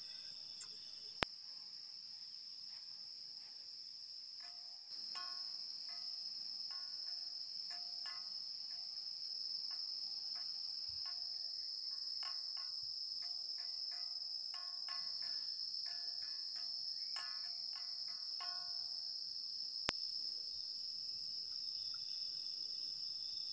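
Steady chirping of crickets and other night insects. From about five seconds in, a run of clear struck metallic tones plays a repeating rhythm for about fourteen seconds, like a gamelan's kenong gongs. A single sharp click comes near the start.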